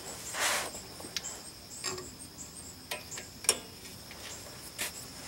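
Sharp metallic clicks and taps of drum-brake hardware, steel springs and the self-adjuster cable being hooked onto the shoes, over a steady high insect chirping.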